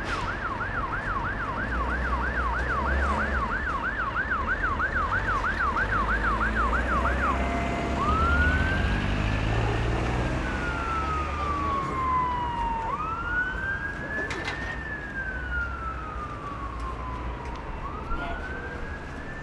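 Emergency vehicle siren, first in a fast yelp of about three rising-and-falling sweeps a second, then changing about eight seconds in to a slow wail that climbs and falls every five seconds or so, over a low rumble.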